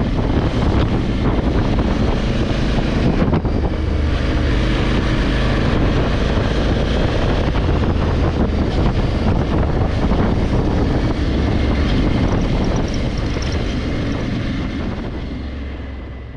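Honda Africa Twin 1100's parallel-twin engine running steadily under way, with heavy wind rush on the microphone. The sound fades out near the end.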